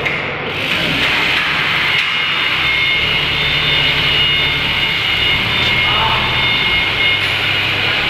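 Forklift engine running steadily under load, with a steady high whine over it.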